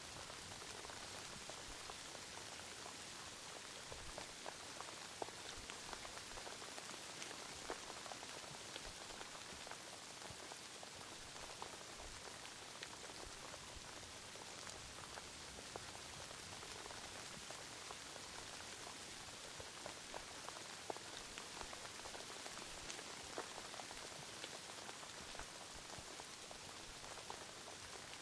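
Steady rain: a soft, even hiss with many small ticks of single drops landing at random.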